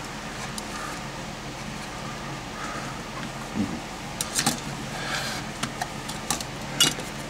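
A few scattered light clicks and knocks, as of parts or tools being handled, over a steady low background hum; the sharpest knock comes near the end.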